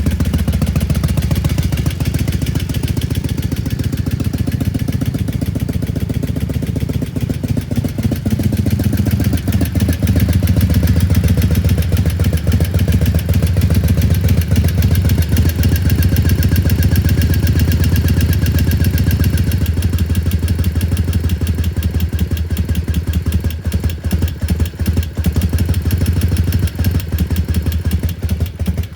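1993 Harley-Davidson air-cooled V-twin engine idling steadily, with an even pulsing beat; it gets a little louder about ten seconds in.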